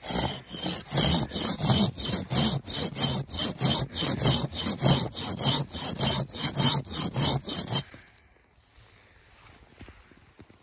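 Silky Zubat 330 Japanese pull saw cutting through a thin standing wooden stem with quick, even strokes, about three a second. The sawing stops about three-quarters of the way in, once the stem is cut through.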